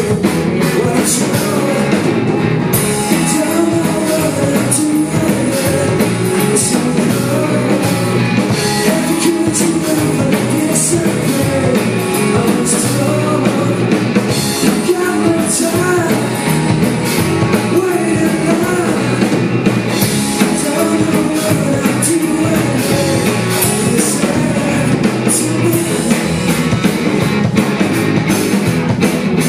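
Live rock band playing loudly on stage: electric guitars and a drum kit in a fast rock song, with no pause.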